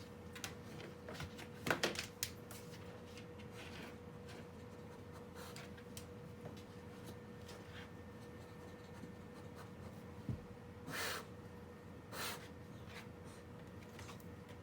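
Beagle poking around the side of a refrigerator: a quick cluster of clicks and scrapes about two seconds in, scattered light taps, and two short sniffs near the end, over a faint steady hum.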